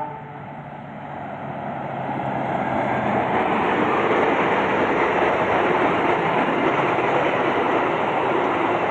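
Diesel-hauled passenger train passing close by. The locomotive's engine hum fades over the first few seconds, while the rolling noise of the coaches' wheels on the rails builds to a steady loud rush.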